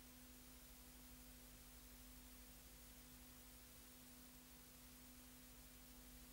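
Near silence: a faint, steady low hum with a constant hiss.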